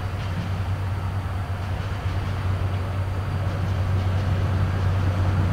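A steady low mechanical hum over an even rumbling noise, like a large engine running at a constant speed.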